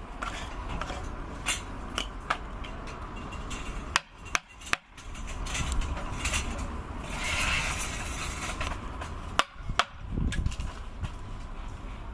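Irregular hammer blows knocking on wood over a steady low background noise, typical of a sculptor working a wooden block by hand.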